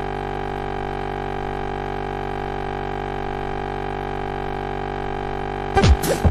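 A sustained electronic synthesizer chord held steady in a beatless breakdown of a techno track. A few loud hits and a short pitch glide come in near the end.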